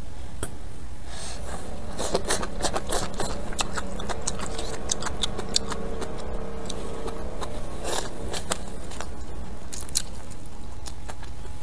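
A person eating close to the microphone: chewing, with a run of short clicks and scrapes from chopsticks against a rice bowl, over a steady low hum.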